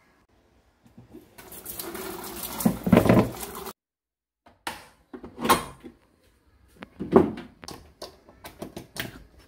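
The lid of a Cuckoo IH electric rice cooker being handled. A stretch of rustling noise ends in a heavy clunk, then come a sharp knock, a louder thud and a quick run of lighter clicks and knocks near the end.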